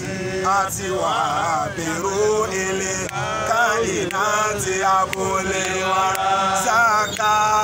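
A group of men's voices chanting a devotional song together, with long held notes.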